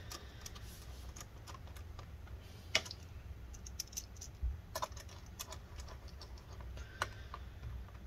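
A few faint, scattered clicks from a small Phillips PH0 screwdriver as the screws holding the laptop's cooling fan are tightened, the sharpest about three seconds in.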